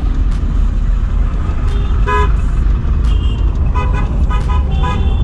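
Low, steady rumble of a vehicle on the road. A vehicle horn honks briefly about two seconds in, then gives a run of about four short beeps near the end.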